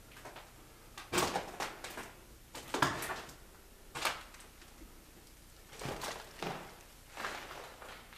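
Footsteps on a gritty, debris-covered floor: a string of about ten irregular steps, loudest in the first few seconds.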